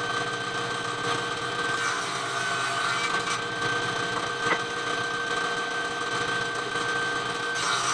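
Electric circular saw running at a steady whine while its blade cuts through wood, with a brighter rasp of blade on wood coming in near the end.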